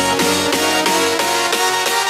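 Electronic background music with a busy run of synth notes.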